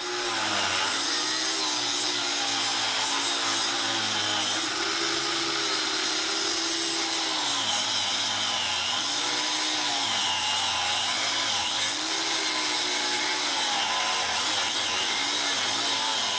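Angle grinder with a cutoff wheel cutting through a quarter-inch-thick steel bar. It runs steadily, and its whine dips and recovers several times as the wheel is pressed into the cut.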